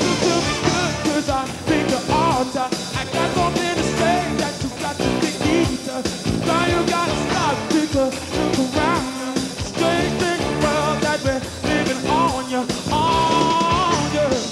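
Rock band playing live: a steady drum beat under guitars and keyboards, with a lead voice singing and a long held note near the end.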